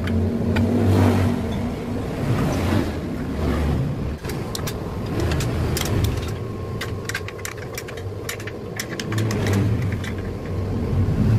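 Light metal clicks and knocks from about four seconds in as an electric motor and worm gearbox assembly is handled, over a fluctuating low rumble.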